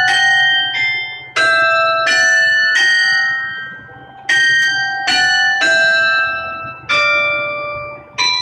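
Church carillon bells struck one at a time in a slow tune, about a note a second, each note ringing on and fading as the next is struck.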